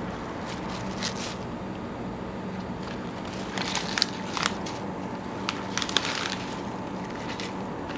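Kitchen clatter: several sharp clinks and scrapes, bunched about halfway through, over a steady kitchen hum.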